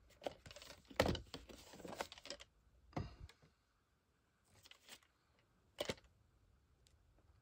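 Handling noise of a VHS tape in its cardboard sleeve being turned over in the hand: rustling and a few short knocks and clicks, the loudest about a second in.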